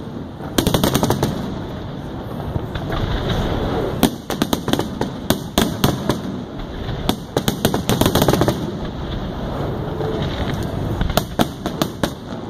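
Fireworks finale barrage: aerial shells bursting in rapid volleys, runs of sharp bangs fired in quick succession over a continuous rumble of reports.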